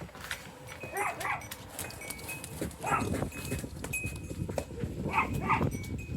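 Short pitched animal calls in three bouts: about a second in, about three seconds in, and a quick pair near five seconds.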